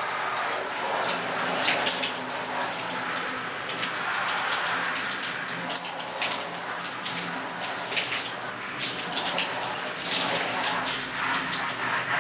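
Strong jet from a handheld shower head spraying onto a hooded membrane windstopper suit, water hissing steadily as it hits the fabric.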